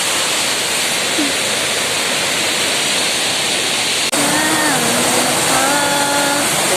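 Waterfall rushing: a loud, even wash of falling water. After an abrupt cut about two-thirds through, a faint voice with a few held notes comes in over it.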